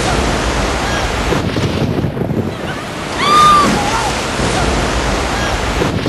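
Whitewater rapids of the Niagara River rushing loudly and steadily. A brief high cry cuts through about three seconds in.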